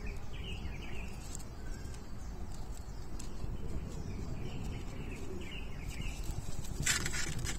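Faint, short bird chirps in the background over a steady low rumble, with a brief noisy rustle near the end.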